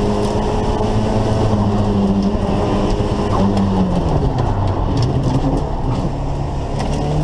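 Turbocharged Volvo B23 four-cylinder engine running under load, heard from inside the car's cabin. About four seconds in its pitch drops sharply, then climbs slowly again.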